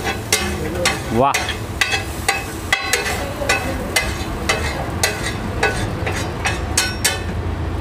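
Metal spatula scraping and clacking against a large flat iron tawa in quick, repeated strokes as rice is stirred and scraped up off the griddle, over a steady low hum.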